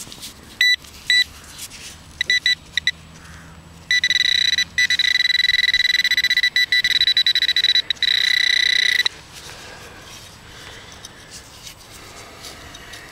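Handheld metal-detecting pinpointer probe beeping as it is worked over a dug plug of soil: a few short beeps, then a near-continuous steady high tone for about five seconds as it sits right over a metal target.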